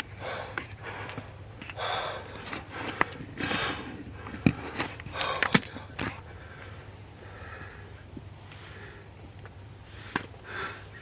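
A hunter breathing hard in excited puffs and sniffs right after hitting a buck with his bow, with a few sharp clicks and knocks in the middle and near the end.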